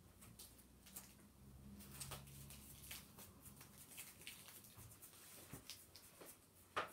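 Paint-loaded toothbrush being worked to spatter white paint, a faint scatter of small ticks and patters with one sharper tick near the end.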